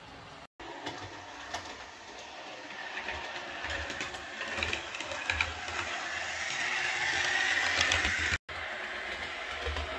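Hornby OO gauge Class 153 model railcar running on the track: its small electric motor whirs and its wheels click on the rails, growing louder as it approaches and loudest about eight seconds in. The sound cuts out completely twice for a split second, just after the start and near the end.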